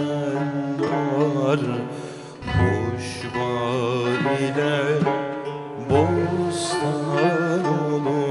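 Male voice singing a Turkish Sufi hymn in an ornamented, melismatic style, with oud, kanun and frame drum. Deep frame-drum strokes come twice.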